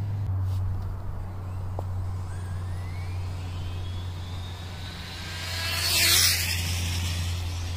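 Electric RC car (Kyosho Fazer Mk2) speeding toward the camera, its motor whine rising in pitch over a few seconds. It passes close by about six seconds in at its loudest, and the pitch drops sharply as it goes past. A steady low hum runs underneath.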